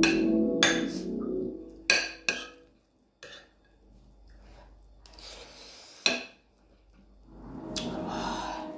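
Metal spoon and fork clinking against a ceramic plate while eating, a handful of sharp separate clinks. Soft background music fades out early on and comes back near the end.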